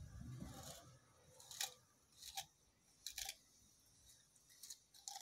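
German Shepherd chewing a stick of sugarcane, the fibrous stalk giving short crisp crunches as it bites down. There are about five separate bites at uneven intervals, most of a second apart, with a couple in quick succession a little past the three-second mark.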